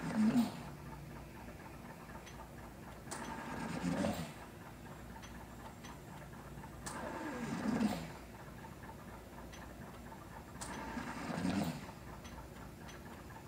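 Home mechanical ventilator cycling through a tracheostomy tube, four breaths about every four seconds: each starts with a click, then a rush of air that swells to a peak and falls away.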